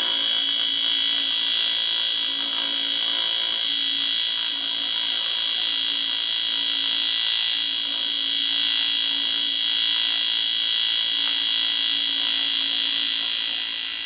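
AC TIG welding arc on a cast-aluminium car sump, making a steady high buzz over a hiss while weld is built up over cracks in the pan. The arc fades out near the end.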